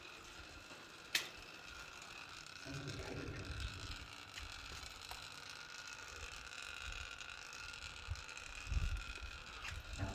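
Faint, steady high-pitched buzzing made of several held tones, an unexplained noise that sounds electrical, or like water spattering and pouring. A sharp click comes about a second in, and low rumbling thuds come a few seconds in and again near the end.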